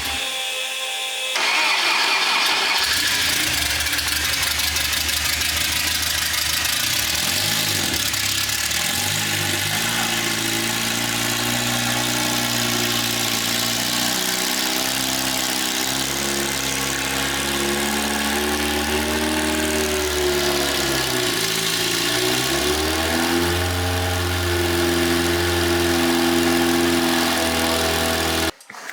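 Newly built off-road race car engine running on its first start, loud and steady, its revs dipping and climbing back around two-thirds of the way through, then stopping abruptly just before the end.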